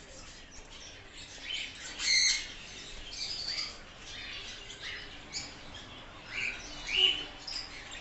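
Caged budgerigars chirping and chattering: scattered short, high calls from several birds, the loudest about two seconds in and again near the end.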